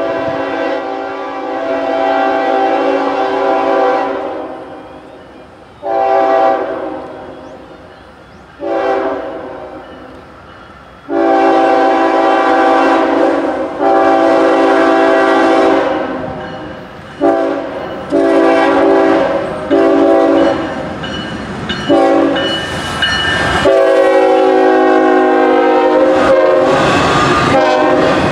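Multi-chime air horn of a CSX intermodal train's diesel locomotive, blown in a long series of long and short blasts as the train approaches. Over the last few seconds the horn holds one long blast while the passing train's rumble builds beneath it.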